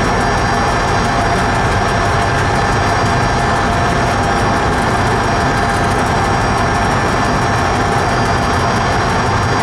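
A train running through a railway tunnel: a loud, steady rumble with a few steady tones over it, unchanging throughout.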